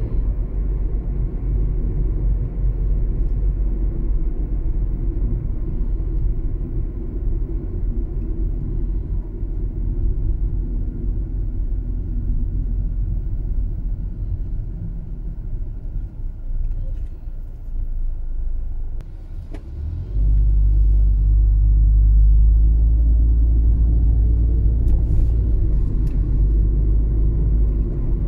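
Car driving in city traffic, heard from inside: a steady low engine and road rumble. About two-thirds of the way through, the rumble suddenly gets louder and stays louder.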